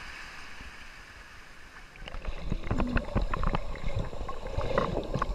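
Shallow sea water washing, then from about two seconds in, muffled gurgling and many small bubble pops and knocks as the action camera goes under the surface.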